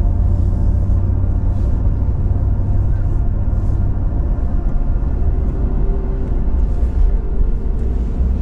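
Ambient background music over the steady low rumble of a pickup truck driving on the road.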